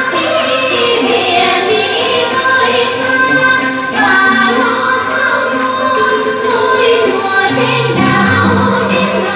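Vietnamese song with a woman singing over instrumental backing, the music for a dance.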